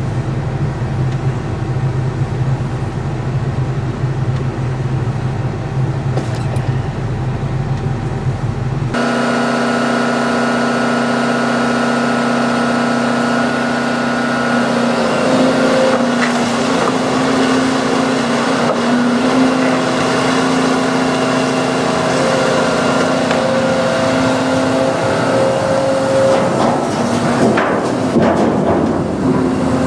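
Volvo crawler excavator at work with a sorting grapple. For about the first nine seconds its engine is a steady low hum heard from inside the cab. Then the sound changes suddenly to the machine's engine and hydraulics running with a steady whine, and near the end there is a clatter of waste being handled.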